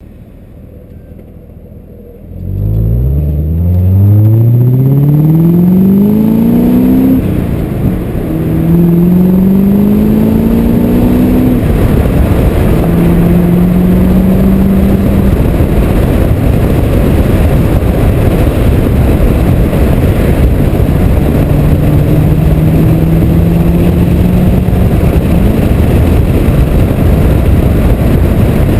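2003 BMW 540i's 4.4-litre V8 with the rear muffler deleted, straight through the exhaust. After a quiet first two seconds the engine comes in loud and pulls up in pitch, drops at a gear change about seven seconds in, and climbs again, then settles to a steady drone under a constant noise.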